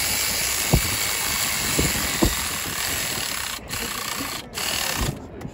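Steady loud hissing noise that starts abruptly and cuts out briefly a few times near the end.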